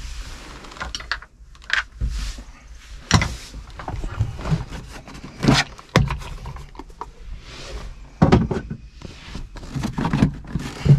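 Knocks, clicks and rattles of a plastic interior panel being unscrewed and worked loose in a tractor cab, with irregular short thuds and scraping.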